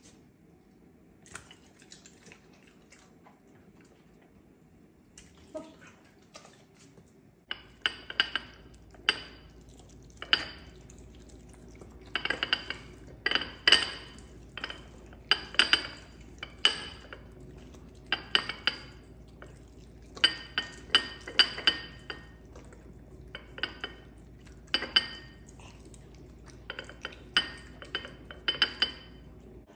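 Dishes and cutlery being handled: many sharp, ringing clinks and clatters of crockery and utensils knocking together, in irregular clusters. They start about seven seconds in, after a few faint clicks, and a steady low hum starts at the same moment.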